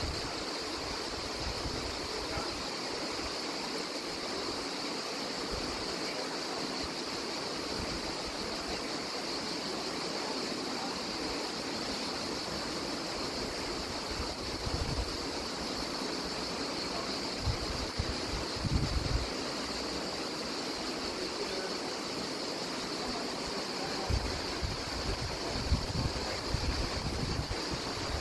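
Steady wash of sea surf on a rocky shore, with a constant high hiss over it. Wind gusts buffet the microphone a few times in the second half.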